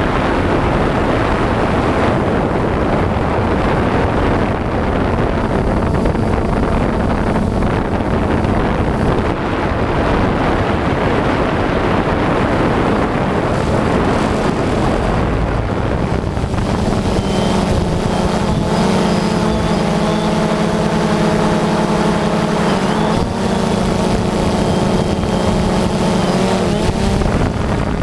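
FPV quadcopter motors and propellers, heard through an onboard camera over heavy wind rush on the microphone. About two-thirds of the way in, a steady pitched buzzing hum rises above the rush and holds until near the end.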